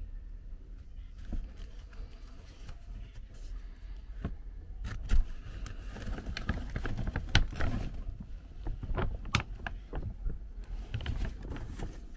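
Plastic dog food sack crinkling and dry kibble shifting and clicking as a hand reaches in and lifts out a young opossum, the crackling getting busier and louder about five seconds in.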